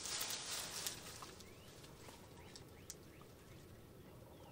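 Brief rustling for about the first second, then faint bird chirps: a few short falling notes over a quiet background.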